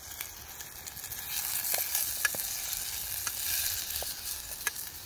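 Chopped red onions sizzling in a stainless steel camping pot over a campfire, stirred with a wooden spoon. The sizzle grows louder about a second and a half in, with a sharp crackle now and then.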